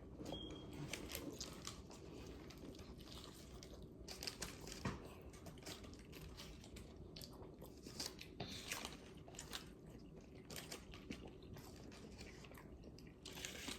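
A person chewing and biting food, with faint, irregular crunches and mouth clicks.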